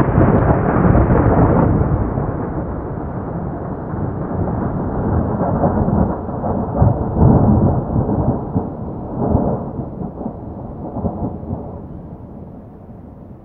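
Rolling thunder rumble, loud at first, swelling a few times in the middle, then slowly fading away.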